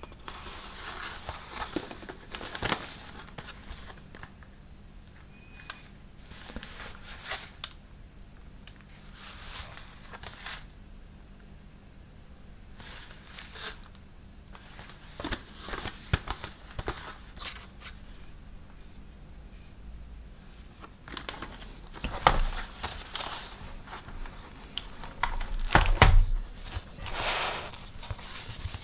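Cardboard box of a 12-tube textile paint set being handled: rustling and scraping of the paperboard as it is turned in the hands, with a few louder knocks and thumps toward the end as it is set on the table and its lid opened.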